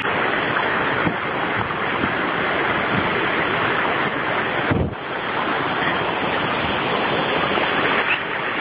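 Stream water rushing over rocks, a steady loud noise that briefly drops out about five seconds in.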